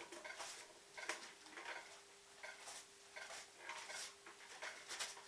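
Shih-poo nosing and rummaging through a pile of torn catalogue pages, the paper rustling and crinkling in irregular bursts.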